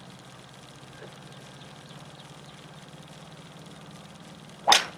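Steady low hum and hiss of an old film soundtrack, then one sharp crack near the end as the golf club strikes the ball.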